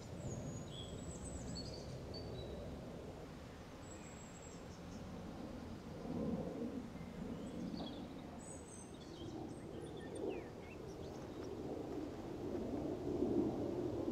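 Outdoor ambience: a low steady rumble with scattered short bird chirps and twitters high above it, getting a little louder near the end.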